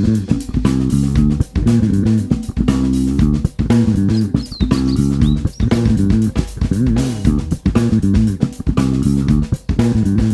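Background music: plucked guitar and bass guitar over a drum beat, playing steadily with a regular rhythm.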